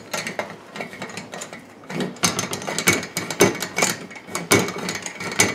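Slide hammer on a blind-hole bearing puller worked by hand against a chainsaw crankcase: a run of irregular metallic clacks and knocks as the sliding weight strikes and rattles on its shaft. It is pulling on a bearing inner race stuck in the case, which has not yet come free.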